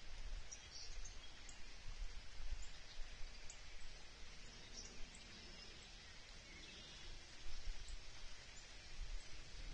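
Outdoor creekside ambience: a steady wash of running creek water with scattered brief, faint high bird chirps, and low rumbling gusts of wind on the microphone.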